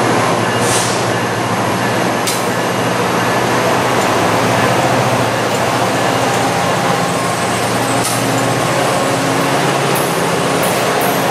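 MARC commuter train's bilevel passenger cars rolling past close by, steel wheels running on the rail in a loud, steady rumble, with a few sharp clicks along the way.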